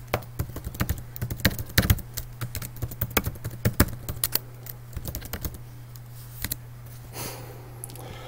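Typing on a computer keyboard: a quick run of keystrokes for about five seconds, then a few scattered key presses.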